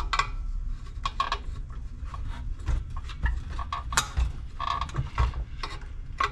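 Small pry bar levering at the crankcase cover of a Briggs & Stratton 550EX engine: scattered metal clicks, knocks and short squeaks as the cover, held by the bent crankshaft, resists coming off.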